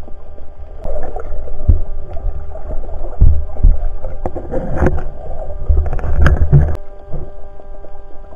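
Water noise picked up underwater by a diver's camera: a heavy, uneven low rumble with sloshing and a few sharp knocks as the diver moves, over a steady faint electronic whine. The rumble cuts off abruptly near the end.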